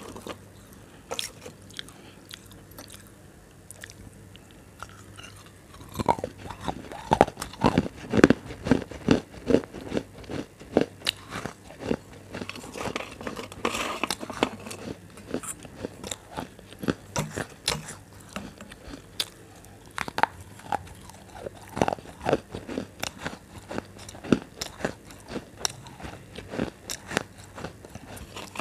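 Crisp, brittle food being bitten and chewed close to the microphone: irregular sharp crunches that become dense and loud about six seconds in, then continue on and off.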